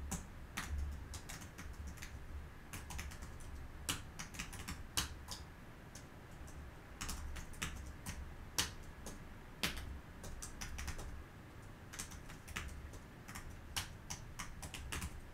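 Irregular light clicks and taps, several a second and uneven in spacing, over a low hum that comes and goes.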